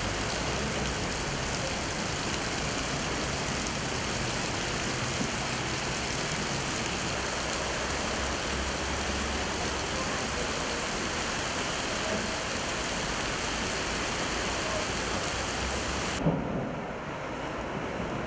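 Heavy rain pouring steadily onto a flooded street, a dense even hiss. About two seconds before the end, after a short thump, the hiss gives way to a duller, lower rushing noise of wind on the microphone.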